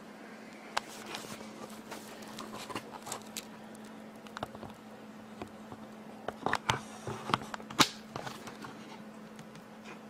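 Handling noise: scattered light clicks and knocks, with a cluster of sharper ones about six and a half to eight seconds in, over a steady low hum.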